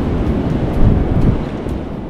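Wind buffeting the camera microphone: a loud, low rumble that eases a little near the end.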